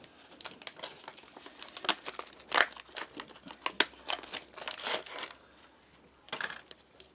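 Foil ration cracker packet being torn open and crinkled while the crackers are pulled out: a run of sharp crackling rustles, loudest in the middle.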